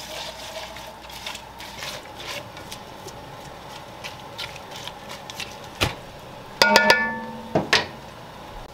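Soft background music, with a plucked-string chord ringing out about two-thirds of the way through, over light clicks and scrapes of a wooden spoon stirring chopped rhubarb and raspberries in an enamelled pot.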